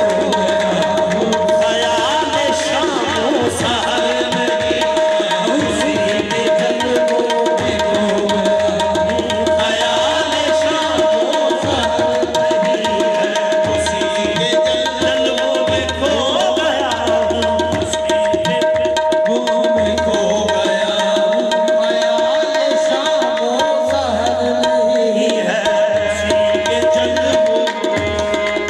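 Qawwali ensemble playing an instrumental passage: tabla drumming with pulsing bass strokes under a harmonium holding one steady note, which drops out near the end.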